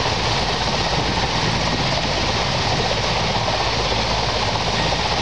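Mi-8-family military transport helicopters running: one hovering low while another's rotors turn on the ground. Their twin turboshaft engines and rotors make a steady noise that holds an even level throughout.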